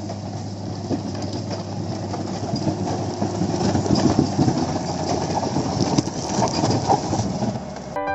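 Heavy engine-driven machinery running, with a steady low drone and a rattling clatter over it, swelling a little midway and cutting off abruptly just before the end.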